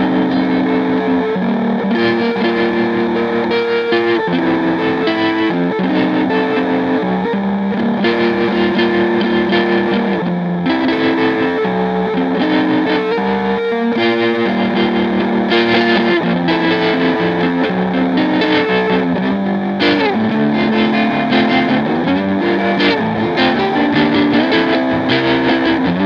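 Instrumental music: guitar with effects and distortion playing held notes and chords that shift every second or two, with sliding notes about twenty seconds in.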